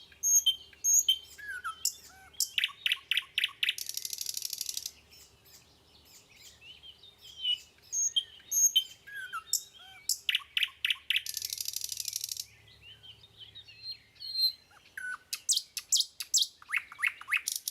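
Small songbirds chirping and whistling in quick, high notes, with a long buzzy trill about four seconds in and again near twelve seconds; the same run of calls comes round twice, like a looped birdsong track.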